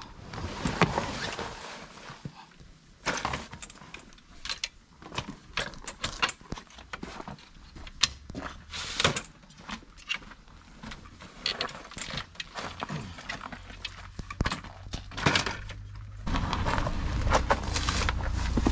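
Fishing tackle being handled and loaded onto a wheeled tackle trolley: irregular clicks, knocks and rattles of boxes and trolley frame. A low steady rumble comes in near the end.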